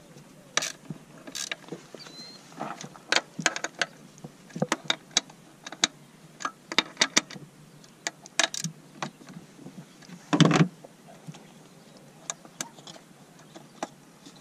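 Hand ratchet clicking in short, irregular runs while tightening the hold-down bolts of an ignition coil pack, with a louder clunk about ten seconds in.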